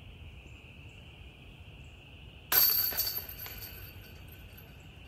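A disc golf putt striking the chains of a disc golf basket about two and a half seconds in, a sudden loud metallic jangle that rings and fades over about a second as the disc drops in for a made putt.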